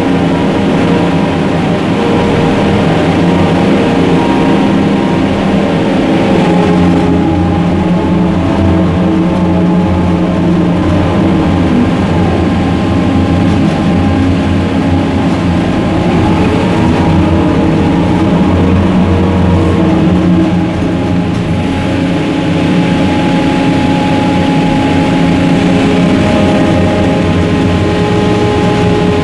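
Ship's deck crane machinery running loudly while its clamshell grab is lowered on its wire ropes into a hold of coal: a steady mechanical drone with several whining tones, some sliding up and down near the middle as the hoist changes speed.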